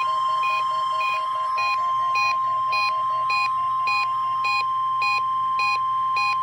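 NOAA Weather Radio's 1050 Hz warning alarm tone, held steady as part of the required weekly test. Over it a Reecom weather alert receiver's own alarm beeps about twice a second, and the beep pattern changes after about a second and a half.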